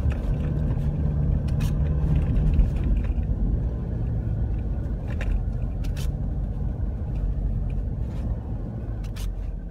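Mitsubishi Pajero Sport SUV driving across a ploughed field, its engine a steady low rumble, with a few sharp clicks now and then.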